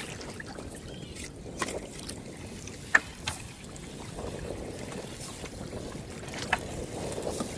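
Steady wind and water noise on a small open fishing boat, with a few sharp knocks and clacks, the loudest about three seconds in.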